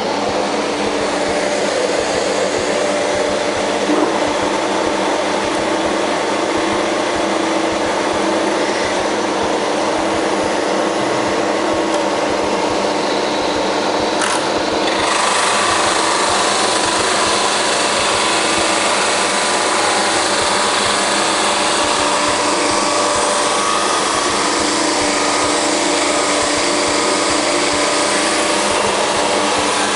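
Jet 22-44 OSC oscillating drum sander running with its dust extractor, a steady machine hum and rush. About halfway through, a board is fed under the sanding drum and a harsher sanding hiss joins in and holds.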